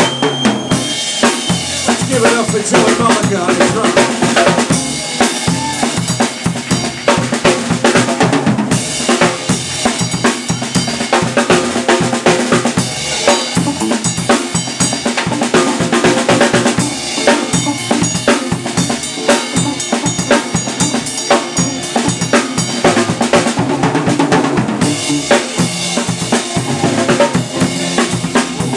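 Rock drum kit played hard and fast in a live band: rapid snare, tom and bass-drum beats with cymbals, and a guitar underneath.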